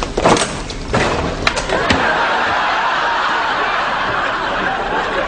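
Studio audience laughing steadily, with two sharp knocks about one and a half and two seconds in.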